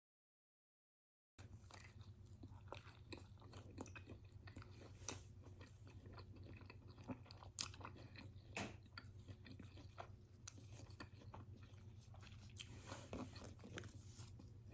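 Faint close-up chewing and biting of a chicken wrap, with small wet clicks and crunches, after about a second and a half of dead silence at the start. A low steady hum sits under it.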